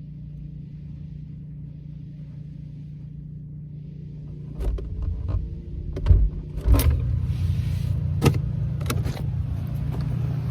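Refrigerator's steady low hum heard from inside the closed fridge. About halfway through come a series of knocks, clicks and rattles, and the sound gets louder.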